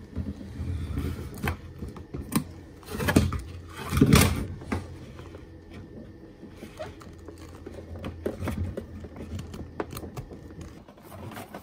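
Solar cables taped to a fish wire being pulled by hand down through a roof hole into a cabinet: irregular rustling, scraping and light knocks as the wire drags through a tight opening, loudest about three and four seconds in.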